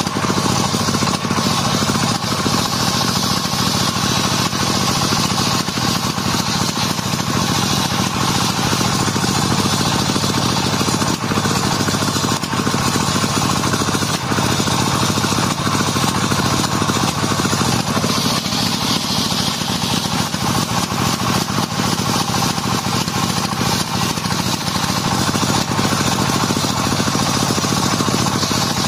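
Homemade table-mounted circular saw running continuously while it rips a lamtoro (leucaena) log into boards: a steady motor hum under the hiss of the blade cutting the wood.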